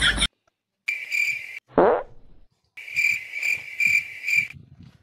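Cricket chirping sound effect, a pulsing high trill in two stretches with dead silence between them. A quick downward swoop comes just before the second stretch.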